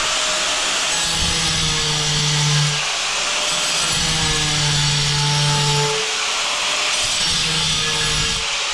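Angle grinder cutting into a hard ceramic tile: a steady high hiss from the disc, with a lower hum that comes and goes three times.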